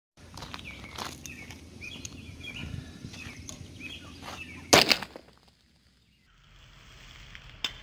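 Birds chirping over outdoor ambience with a few scattered clicks, then a loud sharp bang nearly five seconds in as an aluminium soda can bursts.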